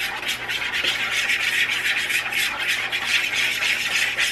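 A fork beating seasoned egg wash on a plate: quick, repeated scraping strokes of the fork against the plate.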